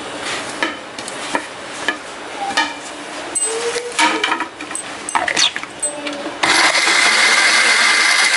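Cut guava pieces knocking and clinking as they drop into a steel mixer-grinder jar, then about six seconds in the electric mixer grinder switches on suddenly and runs steadily, grinding the guava.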